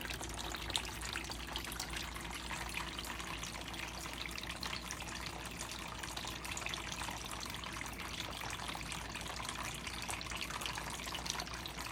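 Water from a three-tier bird bath fountain's pump spilling and trickling down the tiers in a steady splash.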